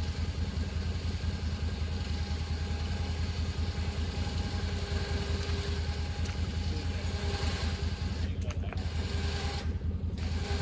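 Can-Am side-by-side's engine running steadily at idle while its electric winch hauls in cable under load, dragging the loaded hog trap through the mud.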